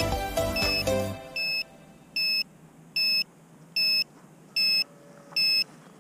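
Background music stops about a second in. Then an electronic beeper gives six short, even beeps, a little more than one a second.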